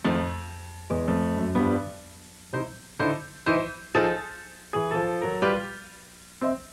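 Piano music: single notes and chords struck at an unhurried pace, each ringing on and fading before the next.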